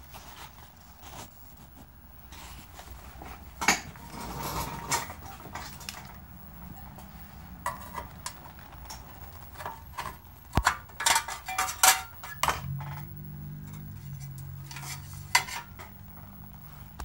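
Sheet-metal clinks and rattles from a vintage TV chassis being handled as its perforated high-voltage cage cover is unfastened and opened, in scattered bursts that are busiest a little past halfway. A low steady hum comes in about three-quarters of the way through.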